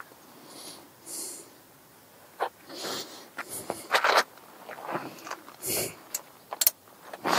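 Brake pads and a caliper carrier being handled and set down on a plastic bag: a series of scattered light clicks and knocks with some plastic rustling.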